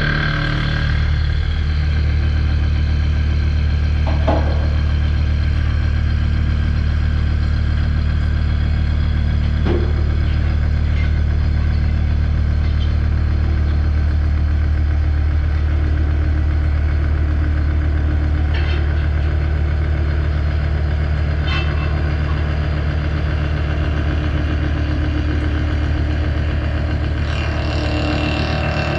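Mazak horizontal machining center running while machining AR400 steel: a steady, loud low machine hum with faint higher tones over it and a few light clicks.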